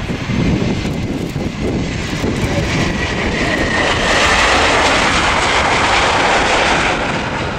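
Airbus A320-232 airliner's IAE V2500 jet engines on the landing roll, a loud steady jet rush that swells about halfway through as the aircraft passes close. A faint steady whine and a low rumble run under it.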